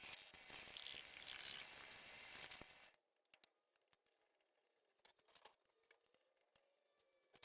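Near silence: a faint hiss for the first three seconds, then only a few faint scattered ticks.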